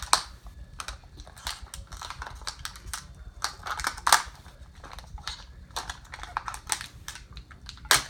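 Plastic toy packaging and paper being handled, giving irregular sharp clicks, taps and crackles, a few each second.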